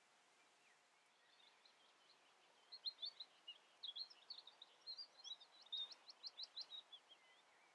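A small songbird singing: high, varied chirps and twitters starting about a second in, ending with a quick run of short, evenly spaced notes.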